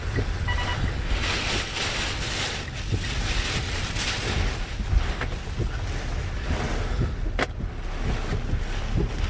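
Category 4 hurricane wind blowing hard against the microphone: a deep, constant rumble under a loud hiss, gusting stronger about a second and a half in. A single sharp crack sounds about seven seconds in.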